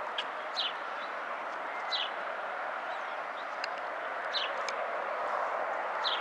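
Distant jet noise of a Boeing 757-300 airliner on final approach: a steady rush that grows slightly louder as the aircraft comes closer. A bird repeats a short falling chirp four times, every second or two.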